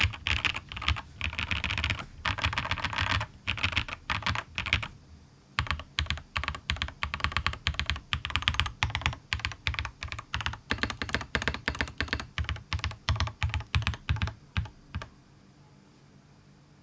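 Fast typing on a RAMA KARA mechanical keyboard with lubed Durock POM linear switches, a polycarbonate plate and PBT keycaps. The keystrokes pause briefly about five seconds in, then resume, and stop about two seconds before the end.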